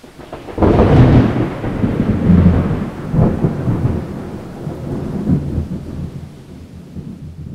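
Thunder rolling over steady rain: a heavy clap about half a second in, more rumbles at about two and three seconds, then the storm slowly dies away near the end.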